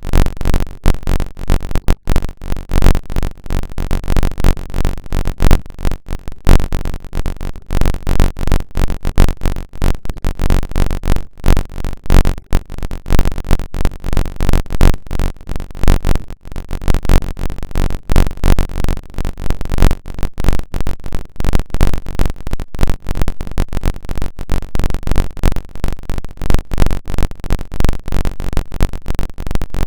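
Computer-generated audio computed sample by sample from a mathematical formula: a harsh, glitchy, rapidly stuttering noise over a few steady low tones, with heavy low bass. Its texture changes about two-thirds of the way through, breaking up into choppier dropouts as the formula gains new operands.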